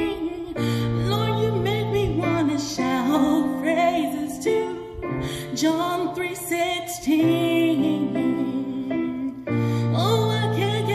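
A woman singing with vibrato to her own electronic keyboard accompaniment, held chords changing every couple of seconds beneath the voice.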